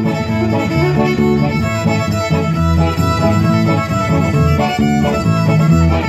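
Live country band playing an instrumental break led by a bowed fiddle, with electric guitar accompaniment.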